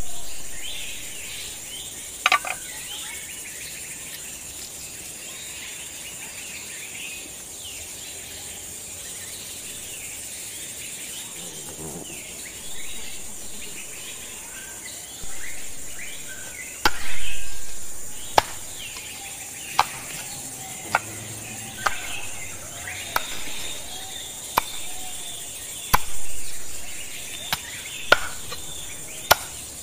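Cleaver chopping turtle meat on a wooden block, with sharp single knocks about once a second through the second half. Under it runs a steady high insect drone with bird chirps.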